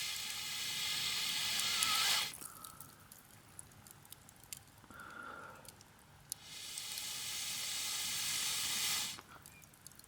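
Two long rushes of air blown onto a wood campfire, each about three seconds, with a short pause and a faint intake between them.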